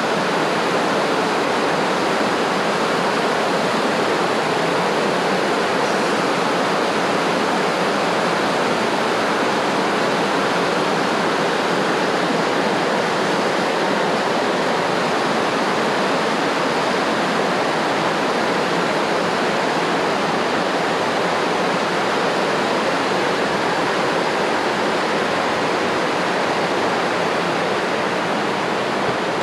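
Steady rush of flowing water, an unbroken loud wash with no breaks.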